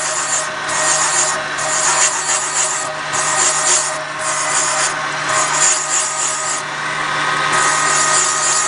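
A valve seat cutting machine's motor runs with a steady hum while its tungsten-carbide multi-angle cutter cuts a hard exhaust valve seat insert in a cylinder head. The harsh metal scraping comes in about six spells of a second or so.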